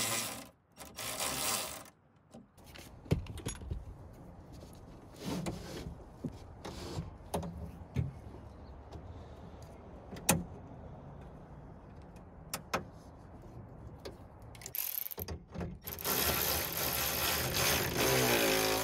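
A small cordless power driver running in short bursts against the nuts of a car door's window-regulator bracket: a whir of about a second and a half at the start, a brief one about three-quarters through and a steadier run of nearly three seconds at the end. Between the runs come light metallic clicks and taps of parts being handled.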